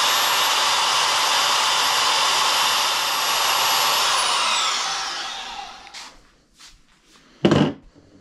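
Small vertical band saw running at full speed and cutting through a steel steering shaft, then winding down with a falling whine after it is switched off about four seconds in. A couple of sharp knocks come near the end.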